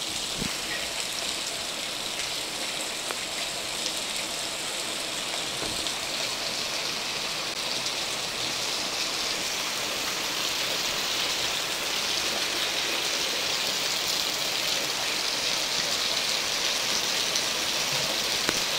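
Heavy rain pouring down steadily, pattering on corrugated roof sheets and wet ground in a continuous hiss.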